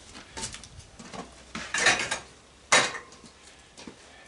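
Sheet-metal and aluminum gas-stove parts clanking and rattling as they are handled and set down: a few separate metallic knocks, the sharpest about three seconds in.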